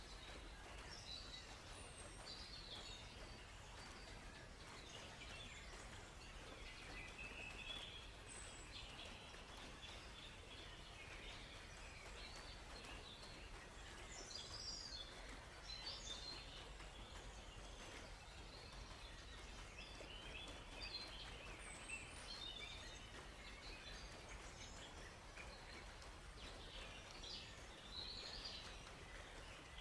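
Faint forest birdsong: many short chirps and trills from several birds, overlapping throughout, over a soft steady background hiss.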